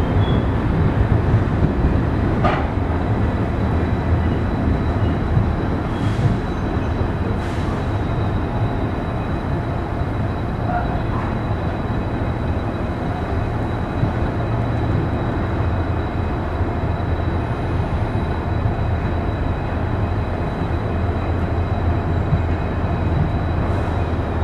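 LHB passenger coaches rolling steadily past as the express pulls out, their wheels running on the rails with a continuous low rumble. A few sharp clicks come in the first several seconds, over a faint steady high whine.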